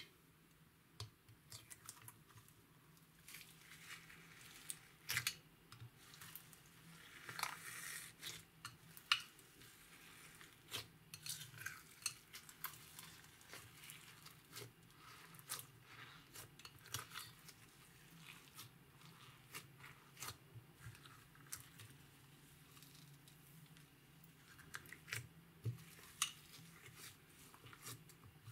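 Hands kneading and squishing clear slime loaded with foam beads and glitter in a glass dish: quiet, irregular sticky crackles and pops.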